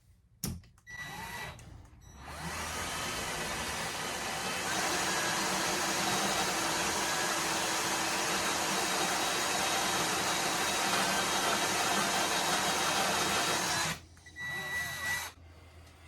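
Electric drill running with a 3/16-inch high-speed steel bit, boring a hole into a broken-off stud for an easy out. It starts about two seconds in, grows louder a few seconds later, and stops abruptly near the end, after a short click at the start.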